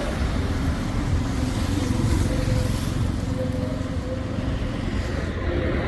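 Street traffic: motor vehicles running and passing, a steady rumble with no breaks.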